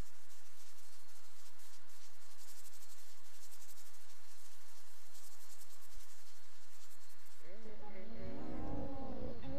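Crickets chirping in a dense, fast high trill over a steady low electrical hum. About two seconds before the end a loud wailing cry breaks in, its pitch wavering up and down.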